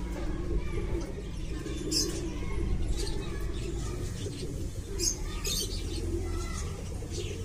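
Domestic pigeons cooing low and repeatedly, with short high chirps from small birds now and then.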